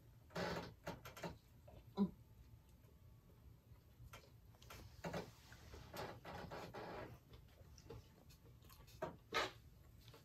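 Close-miked eating sounds: a bite into a fast-food sandwich and chewing, with scattered wet mouth clicks and smacks.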